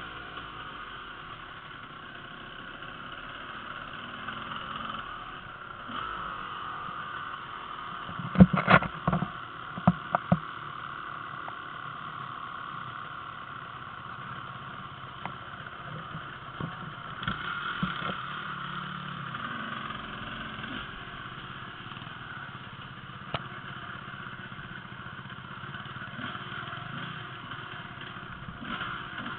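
Enduro dirt bike engines running over a woodland trail, steady and moderate, with a quick cluster of sharp knocks about eight to ten seconds in.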